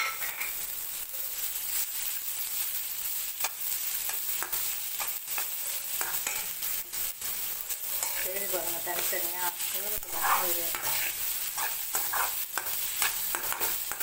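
Grated raw banana, onion and green chillies sizzling in hot oil in a kadai, stirred with a metal spatula that scrapes and taps against the pan many times over the steady sizzle.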